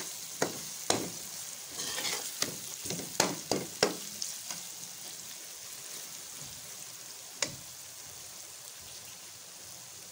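Spice masala of onion, tomato and ground spices sizzling in hot oil in a metal karahi as it is fried down (bhuna), with a steady hiss. A metal slotted spoon scrapes and clinks against the pan about a dozen times in the first four seconds and once more later, while the sizzle settles a little.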